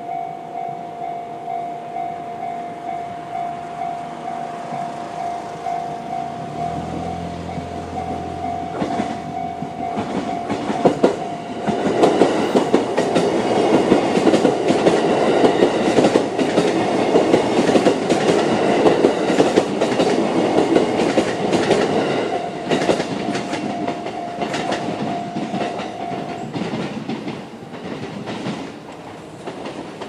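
Electronic level-crossing warning bell of the JR East (Tohoku) type ringing in a steady repeating pattern while an E129 series electric train runs across the crossing, its wheels clattering over the rail joints. The train is loudest about halfway through and then fades. The bell cuts off a few seconds before the end as the crossing clears.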